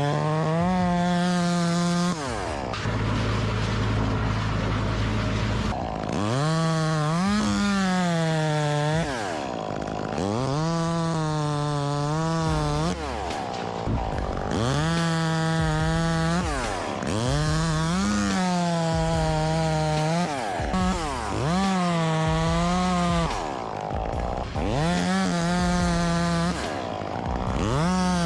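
Two-stroke chainsaw revved up to full throttle in repeated bursts of about two seconds each, dropping back to a lower speed between bursts, about eight times over.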